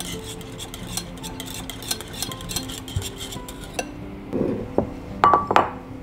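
Wire balloon whisk beating lemon curd mixture in a glass bowl, the tines clicking rapidly against the glass; the whisking stops a little before four seconds in, followed by a few glass knocks and clinks as a glass jar is handled. Soft guitar music underneath.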